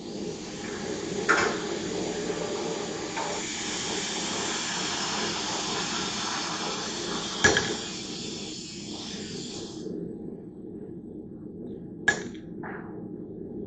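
A steady hiss that stops abruptly about ten seconds in, with sharp metal-on-metal strikes: one early, a loud one about seven and a half seconds in, and one near the end.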